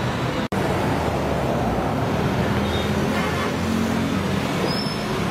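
Steady road traffic noise of a town street, which cuts out for an instant about half a second in.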